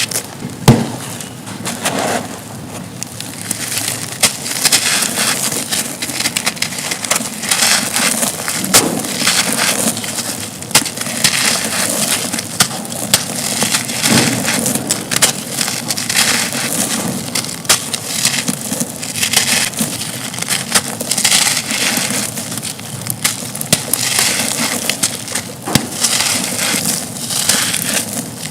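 Dry, dusty chunks of concrete being crumbled: a steady run of crunching and crackling, thick with small snaps. One sharp, loud crack comes about a second in.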